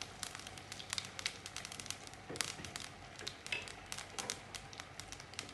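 Mustard and cumin seeds frying in hot groundnut oil in a small steel kadai for a tempering, crackling with irregular sharp pops.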